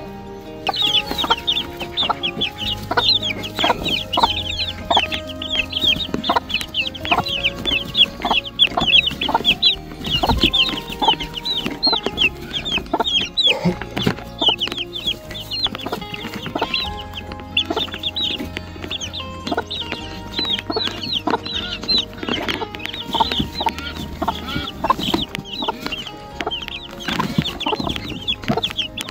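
A brood of baby poultry peeping rapidly and without pause, many high, short, downward-sliding peeps a second, with the mother bird clucking now and then. Background music plays underneath.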